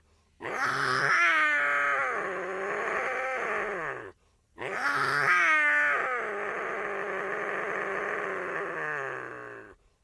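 Puma (cougar) calling: two long, drawn-out, wavering calls with a short pause between them, each rising in pitch at the start and falling away at the end.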